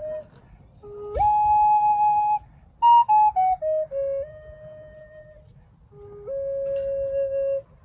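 Native American wooden flute playing a slow melody. Just after a second in, a note slides up into a long held tone. Near three seconds a short falling run of notes leads into a softer held note, and about six seconds in the flute slides up into another long note.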